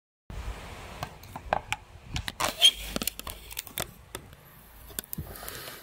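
Handling noise: irregular light clicks and knocks, the loudest about two and a half seconds in.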